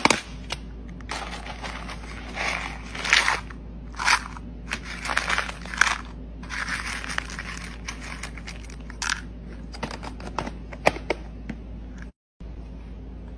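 A dog chewing on something hard, with irregular loud crunches that come and go for about ten seconds.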